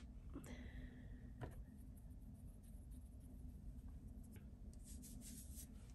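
Near silence: quiet room tone with a steady low hum, broken by a few faint clicks and soft rustles from a glass roll-on fragrance bottle being handled and rubbed onto the skin.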